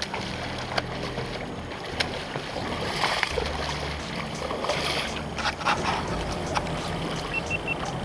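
Moving river water and wind on the microphone, with scattered sharp knocks.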